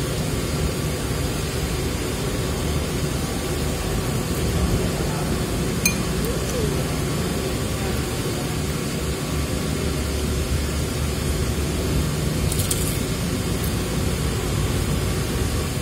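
A person eating with chopsticks, chewing quietly over a steady background rumble, with a single click about six seconds in and a short crisp crunch, as of a fried wonton bitten, roughly three-quarters of the way in.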